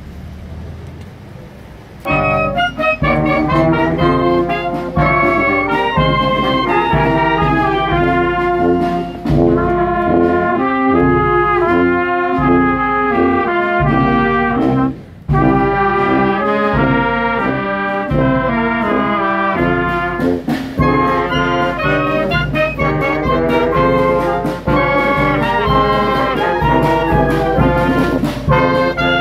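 Town wind band of clarinets, trumpets and trombone playing a tune together, starting about two seconds in and pausing briefly near the middle before going on.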